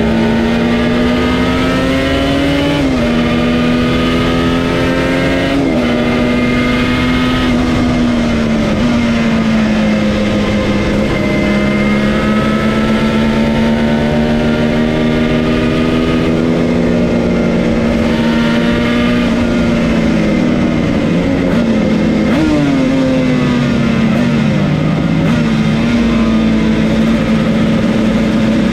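Yamaha TZR250 1KT two-stroke parallel-twin engine pulling hard on track, heard from the rider's seat over rushing wind. The revs hold high and steady for long stretches, and a few times climb and drop sharply as the rider changes gear.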